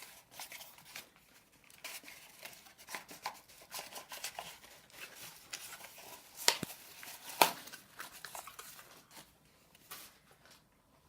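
Plastic packaging crinkling and tearing as a hard-to-open wrapping is worked open by hand, a dense run of crackles with two sharp snaps about six and a half and seven and a half seconds in.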